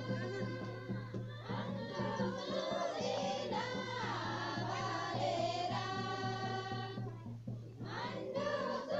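A group of voices singing together in unison, with long held notes and a short break about seven seconds in, over a steady low hum.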